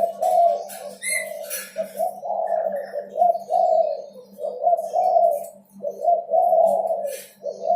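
Derkuku dove cooing: a continuous run of low, rounded coos, about two a second, broken by short pauses. A faint steady hum runs underneath.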